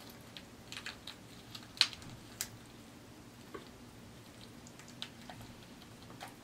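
Boiled lobster tail shell cracking and crackling as it is pulled apart by hand: scattered sharp clicks, loudest around two seconds in, growing sparser toward the end.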